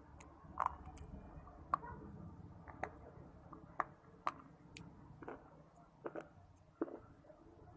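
Close-mouthed chewing of crunchy clay or shale pieces: sharp, irregular crunches and crackles, roughly two a second, over soft wet mouth sounds.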